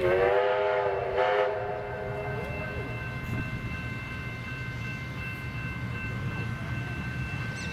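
Steam locomotive whistle on the K190 and A2 986 steam train: one blast of about two and a half seconds, with a stronger burst about a second in. The low rumble of the train running carries on under it and after it.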